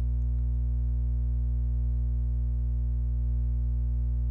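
Steady low electrical hum with a stack of evenly spaced overtones, unchanging in level and pitch.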